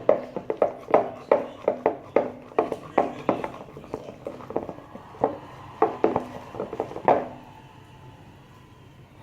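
Homemade glue-and-detergent slime squeezed and kneaded by hand, giving quick sticky squelching pops, two to three a second, that stop about seven seconds in.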